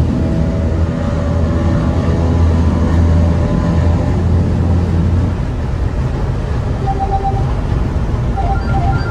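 Box truck driving, heard from inside the cab: a steady low engine and road drone that eases off about five seconds in.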